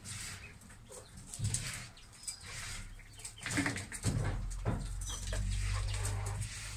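Quail in a pen: scattered soft rustling and a few short high calls, with a low rumble coming in about four seconds in.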